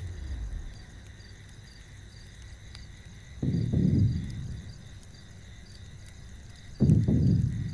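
Crickets chirping steadily in a night ambience, broken twice by a deep low rumble about a second long, roughly three seconds apart; the second rumble starts abruptly.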